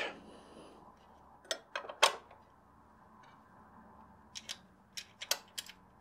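Light metallic clicks and taps as a mechanical safe lock's metal cover plate is handled and fitted onto the lock case. A few come around one and a half to two seconds in, and more near the end.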